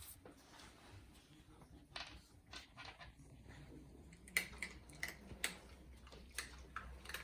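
A dog eating food: scattered faint crunches and clicks, with a run of louder ones past the middle.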